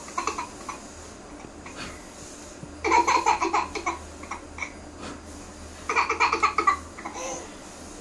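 Toddler laughing in two bursts of quick, pulsing belly laughs, one about three seconds in and another about six seconds in.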